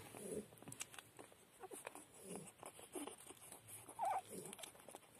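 Young puppies nursing at their mother's belly: soft grunts, rustling and snuffling, with one brief high squeak about four seconds in.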